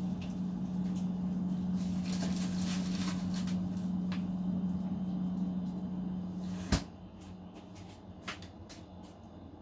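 A steady electrical hum that cuts off with a sharp click about seven seconds in, followed by a few light clicks and knocks.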